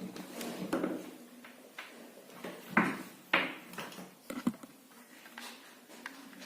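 Irregular knocks, clicks and scrapes of small hard objects being handled and set down, the sharpest a little under three seconds in, just after three seconds, and twice in quick succession around four and a half seconds.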